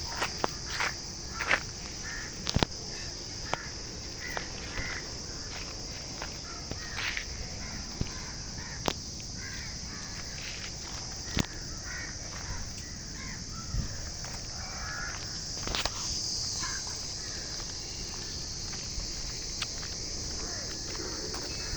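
Outdoor animal ambience: a steady high-pitched drone with scattered short animal or bird calls and occasional sharp clicks, most of them in the first few seconds.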